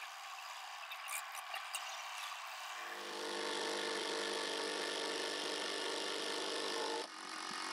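Compact front-loader tractor engine running as the tractor pulls away, with a few light clicks and knocks. About three seconds in it turns into a louder, steadier hum with hiss.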